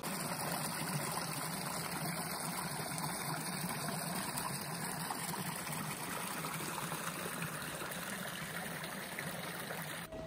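Steady rush of running water, even and unbroken, cutting in and out abruptly.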